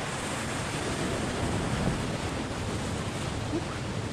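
Fast water rushing down a weir's canoe chute and churning around an inflatable canoe, a steady, even rush.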